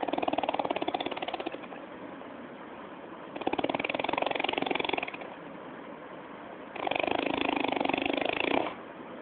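A person snoring: three rattling snores of about a second and a half each, coming about every three and a half seconds with each breath.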